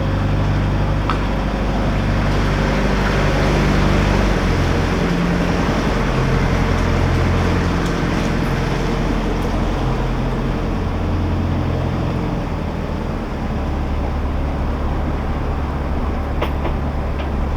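A narrowboat's diesel engine running steadily while cruising, with a steady hiss over the low engine note.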